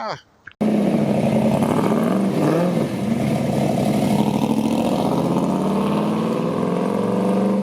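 A car engine running and revving, cutting in abruptly about half a second in, its pitch rising and falling.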